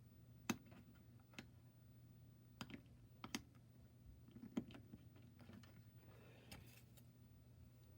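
Faint, scattered plastic clicks and taps of an action figure being fitted onto its plastic display stand, a handful of separate ticks with the loudest about half a second in.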